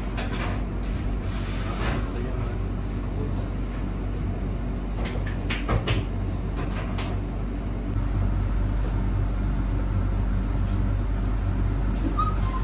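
Busy commercial kitchen: a steady low machine hum with scattered clicks and clatter of utensils and dough-handling, including a few sharp knocks about five to seven seconds in. The hum gets louder about eight seconds in.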